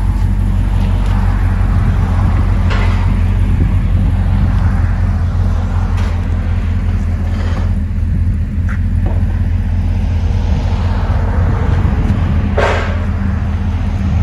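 Chevrolet Corvette 6.2-litre V8 with long-tube headers and an aftermarket exhaust, running at idle with a steady deep rumble while the car creeps forward at low speed.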